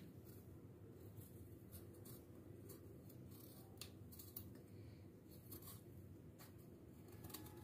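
Faint, irregular short strokes of a kitchen knife slicing the peel off a bottle gourd (lauki).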